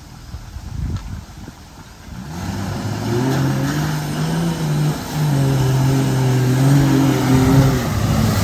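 Off-road Jeep engine revving hard under load in mud, coming in about two seconds in. It holds high rpm at a few steady pitches that step up and down, with a brief dip about five seconds in.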